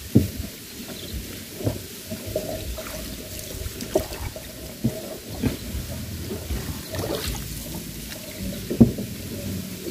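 A small fiberglass boat being paddled: water splashing and dripping with each stroke, and irregular knocks of the paddle or gear against the hull.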